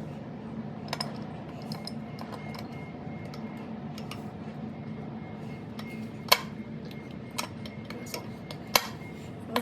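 Metal tools and engine parts clinking and tapping as they are handled, with two sharper knocks about six and nine seconds in, over a steady low hum.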